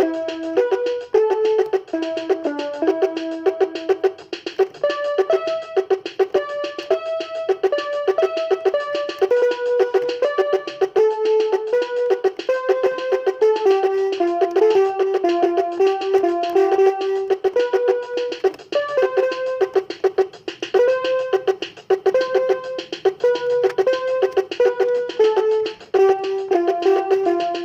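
Instrumental background music: a quick melody of short, stepping notes that runs without pause.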